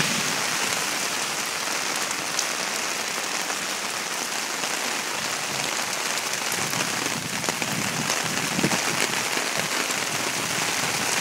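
Heavy rain pouring onto a paved street: a dense, steady hiss of downpour.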